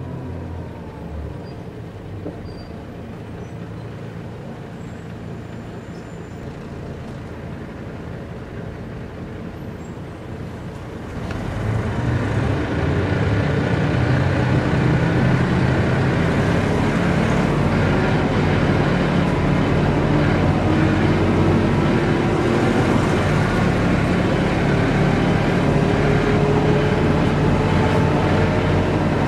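Mercedes-Benz O405 N² city bus's diesel engine running steadily and fairly quietly, then about eleven seconds in it pulls harder and gets much louder as the bus accelerates. Over the last ten seconds a whine slowly rises in pitch, from a drivetrain whose gearbox sound the uploader finds strange.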